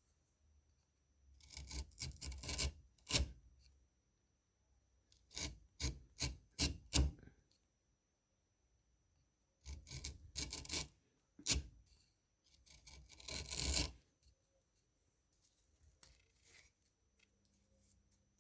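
A freshly sharpened chisel worked in four bursts of short, scraping strokes with pauses between them.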